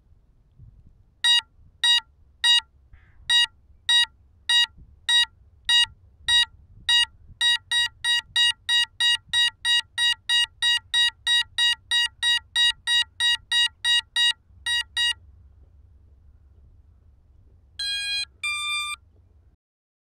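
Crashed FPV quadcopter beeping: a long run of short, high electronic beeps, about two a second at first, then faster at about three a second, stopping about fifteen seconds in. Near the end come two longer tones at different pitches, over a faint low rumble.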